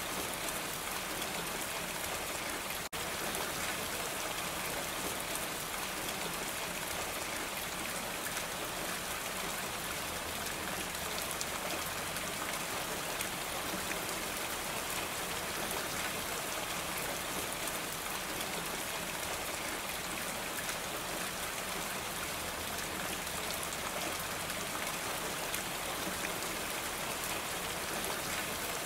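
Steady rain falling on a roof, an even continuous patter, with a split-second dropout about three seconds in.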